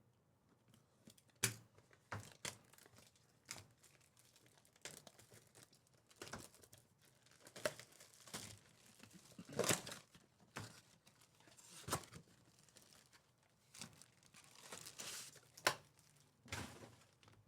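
Trading-card packs being torn open and handled: faint, irregular crinkling and tearing of the wrappers, a scatter of short rustles and clicks.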